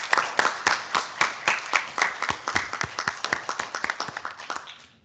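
A class of children applauding, a dense patter of hand claps that thins and fades out near the end, heard over a video-call link.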